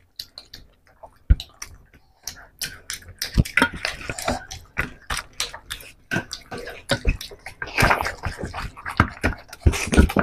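Rapid wet squelching and smacking of hands mashing rice into fish curry on steel platters, mixed with open-mouthed chewing and lip smacks. A few scattered clicks, then a dense run of smacks from about two seconds in.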